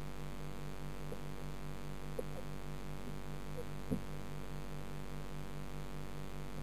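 Steady electrical hum underwater in a turtle tank, pulsing about five times a second, with two faint clicks about two and four seconds in.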